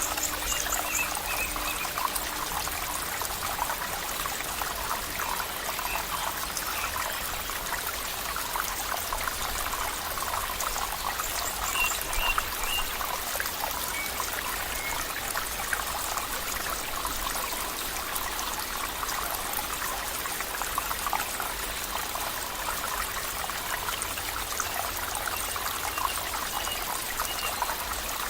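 Flowing water trickling and babbling steadily, as from a small stream, with a few faint high chirps now and then.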